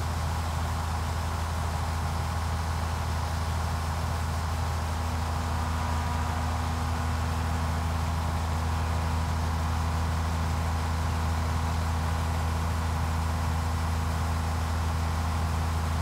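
Two Case IH Axial-Flow combines, a 1660 and a 1440, running side by side: a steady diesel engine drone with a deep low hum and a faint machinery whine over it, as the 1660's unloading auger transfers shelled corn into the 1440.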